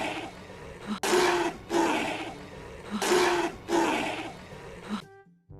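Recorded dinosaur roars, each in two parts, repeating about every two seconds and stopping near the end.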